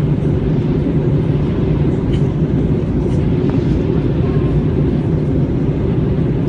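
Airbus A321 in flight heard from inside the cabin: a steady, loud roar of jet engines and rushing air, deepest in the low end, without change.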